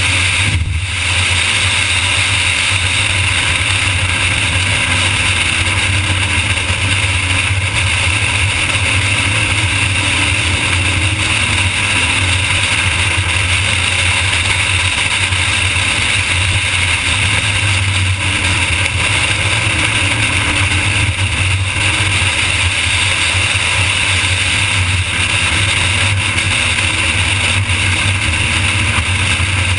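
Pontiac GTO's stock V8 at track speed, heard from the car under a steady loud rush of wind and road noise. The engine note rises and falls with the revs.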